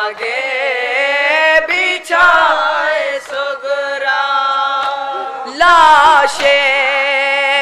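Group of young men singing an Urdu noha (Shia lament) together without instruments, in long drawn-out, wavering held notes.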